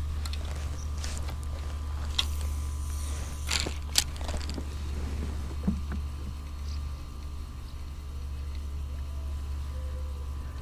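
Steady low rumble, with a few sharp clicks and a brief swish a few seconds in, as a spinning rod is cast and its reel wound in.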